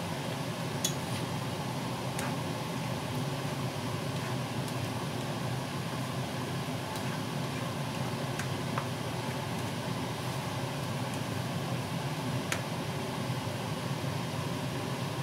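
A slotted spoon stirring vegetables in a skillet, clicking against the pan a few times, over a steady fan-like hum and hiss.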